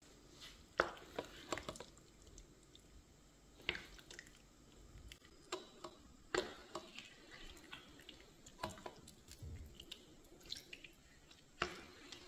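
Fried chicken pieces being turned in a thick, sticky soy and brown sugar sauce with a silicone spoon in a pan: about ten scattered, irregular wet squelches and light clicks.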